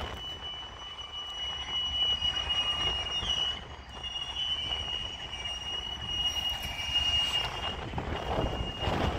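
Freight car wheels squealing against the rail in one steady high note as the train backs slowly around the curve of a wye, over a low rumble.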